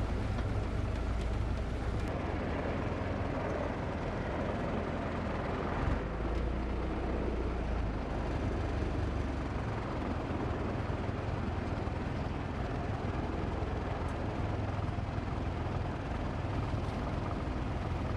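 A heavy engine running steadily with a low rumble, with a brief knock about six seconds in.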